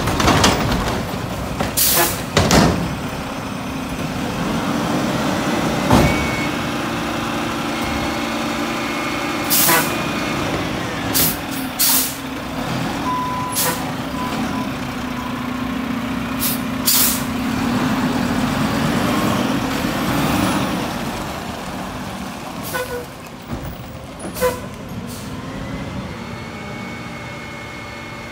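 Mack garbage truck running under load while its automated arm lifts and dumps a wheeled cart, with repeated loud bangs of the cart against the hopper and sharp air-brake hisses. The engine and hydraulic drone swells for several seconds in the middle, then eases off near the end.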